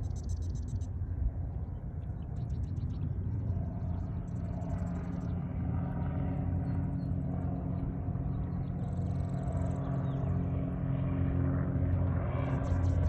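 A small bird chirping in short, buzzy bursts, repeated several times, over a steady low mechanical rumble.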